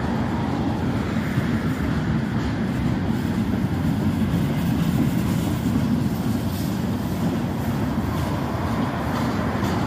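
Freight train of tank cars, a covered hopper and gondolas rolling past on the rails, a steady low noise of steel wheels on track.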